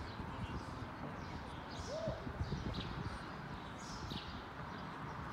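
Outdoor ambience with a steady low rumble and birds chirping, short high chirps about once a second, plus one brief call about two seconds in.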